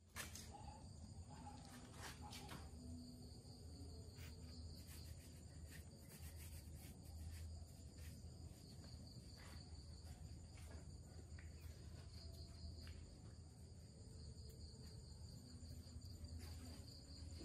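Faint background: a steady high-pitched chirring of insects over a low hum, with a few soft clicks.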